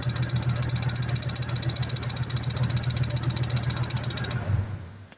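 Ford F-150's engine idling steadily with a fast, even ticking, then shutting off about four and a half seconds in.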